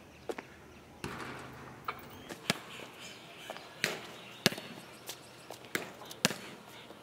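Basketball bouncing on a concrete court: about ten sharp, irregularly spaced thuds.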